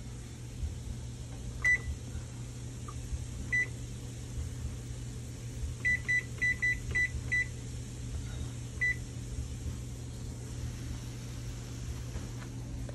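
Electric oven's digital control panel beeping as its buttons are pressed to set the bake temperature and time: about ten short, high beeps, a few spaced out and a quick run of them around the middle, over a steady low hum.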